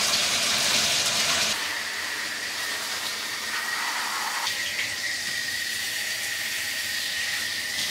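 Handheld shower spraying water over a dog's soapy coat in a bathtub: a steady hiss of running water that drops in level about a second and a half in. A faint, thin, steady high tone runs under the spray from then on.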